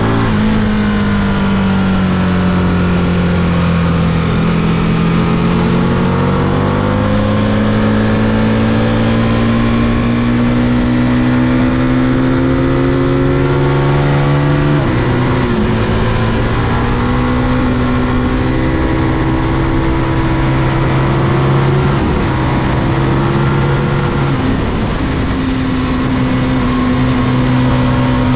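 Sport motorcycle engine heard from the rider's seat, pulling hard through the gears: the revs dip as it slows for a bend, then climb steadily, dropping sharply at each of three quick upshifts. Wind rush runs underneath.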